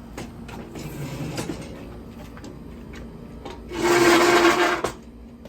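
Light handling and rustling as an aluminium lounge chair and its sling are moved, then a loud harsh scrape about a second long near the end, with a steady ringing tone under it.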